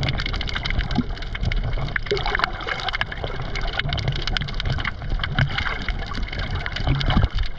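Underwater sound of water moving around a snorkeler's camera: a low rumble of water and breathing bubbles with a dense crackle of tiny clicks.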